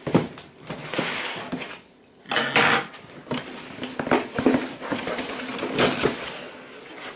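Cardboard delivery box being cut open and handled: a run of knocks, scrapes and rustles of cardboard, with a sharp knock at the start and a loud scrape about two and a half seconds in.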